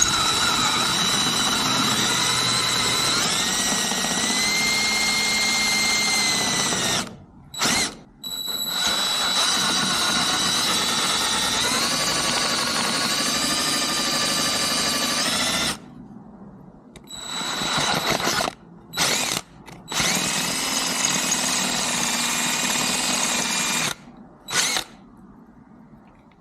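Electric drill enlarging the bolt holes in a short shifter drop plate, running in two long stretches and then in shorter bursts with brief blips between, its whine stepping up and down in pitch as the speed changes.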